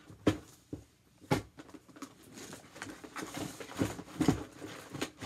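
Packaged gift boxes being handled and set down on a table: a few sharp knocks with rustling of cardboard and packaging between them, with a cluster of knocks about four seconds in.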